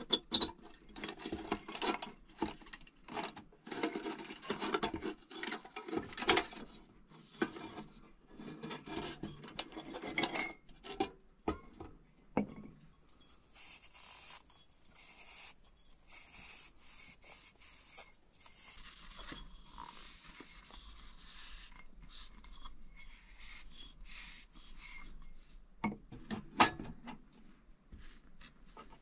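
Metal clicks and clatter as a hurricane lantern is handled and its glass globe taken off. From about halfway, a cloth rubs round inside the glass globe with a steady hiss, and a couple of sharp knocks come near the end.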